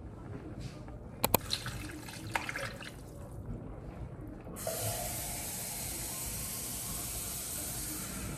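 Kitchen tap running water into an empty tin tomato can to fill it, switched on suddenly about four and a half seconds in. A couple of sharp metallic clinks come about a second in.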